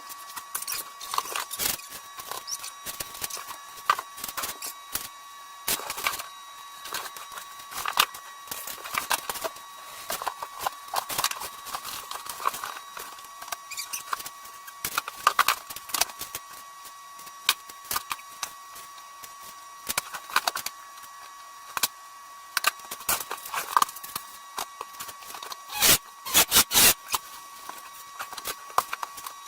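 Scattered clicks, taps and light knocks of hand work with wood and tools, over a faint steady high-pitched hum. A quick run of louder knocks comes near the end.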